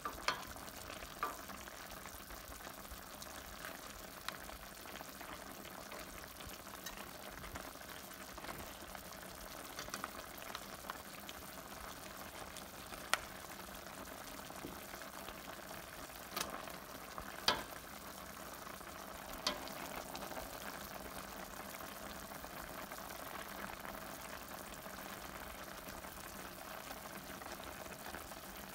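Chicken adobo simmering in its soy-vinegar sauce in a stainless steel pot, a steady bubbling and sizzling. A spoon stirs through it, with a few sharp clinks of the spoon against the pot, the loudest about two-thirds of the way through.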